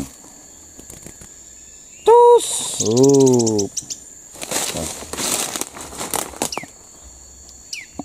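A small songbird flapping its wings in a flurry of rustles for about two seconds past the middle, over a steady high buzz of insects. Before that come two short, louder voice-like sounds: a brief cry and a hummed note.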